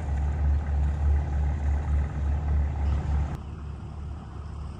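Low, pulsing engine throb of a cargo barge passing on the river. It drops to a fainter hum about three seconds in.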